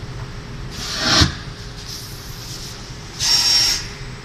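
Paper-pulp egg tray forming machine running: a steady low hum with rhythmic bursts of air, one swelling into a sharp knock about a second in and one a hissing blast with a thin whistle a couple of seconds later, the pattern repeating with each turn of the rotary moulds.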